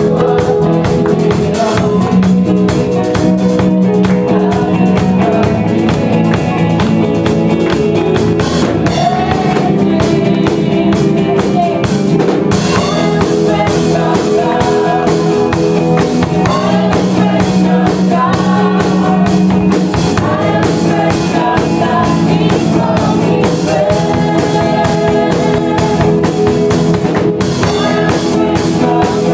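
Worship band playing a song: drum kit and guitar with sung vocals, loud and steady throughout.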